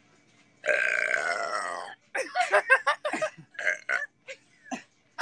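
A teenage girl's long burp, about a second and a half, whose pitch slides downward, starting a little under a second in. Short broken vocal sounds from her follow.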